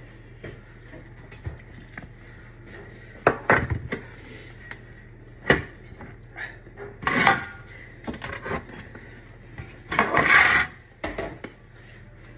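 Spatula scraping thick cake batter out of a glass mixing bowl into metal loaf tins: scattered scrapes and knocks against bowl and tin, with the longest, loudest scrape about ten seconds in.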